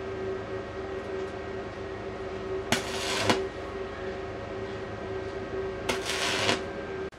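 Stick (arc) welding: the electrode's arc buzzing steadily, with two louder hissing bursts about three and six seconds in, each lasting just over half a second.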